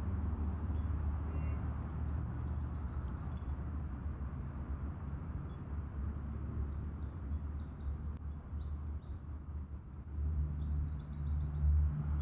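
A songbird sings in three bursts of quick, high chirping phrases over a steady low rumble, which grows louder near the end.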